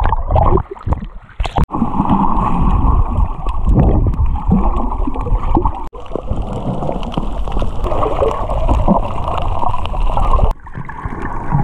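Muffled underwater gurgling and rushing of water around a submerged action camera while snorkeling, breaking off abruptly a few times.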